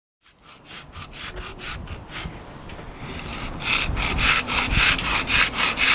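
A hand scraper scraping marine growth off the bottom of a yacht's keel in rapid, even back-and-forth strokes, about five or six a second. The strokes grow louder and harsher about three and a half seconds in.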